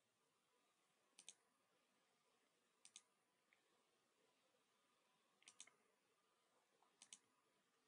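Four faint computer mouse clicks, spaced a second or two apart, each a quick double tick.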